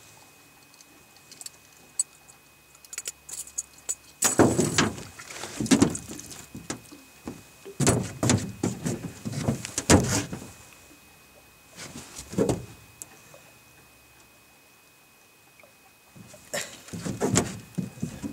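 Irregular knocks, thuds and rustling of a freshly caught lake trout being handled and held up in a small boat, in clusters with quieter gaps between. A faint steady high-pitched tone runs underneath.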